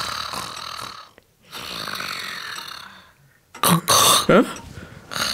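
Sleeping bear snoring: two long snores, then louder, shorter noises with a falling-pitched grunt about three and a half seconds in.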